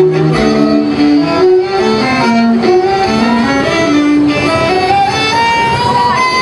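A string quartet of violins and a cello playing live, bowed strings in a moving melody that climbs to a held high note near the end.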